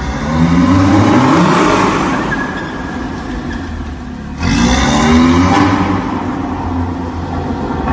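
Volkswagen Golf R Mk7's turbocharged four-cylinder engine accelerating hard, its pitch rising. About four seconds in the sound breaks off briefly at a gear change, then it rises again as the car pulls past and away. The exhaust echoes off the concrete of an underground car park.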